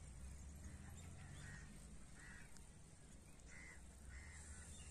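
Faint bird calls: about five short calls spread through a few seconds, over a low rumble of wind on the microphone.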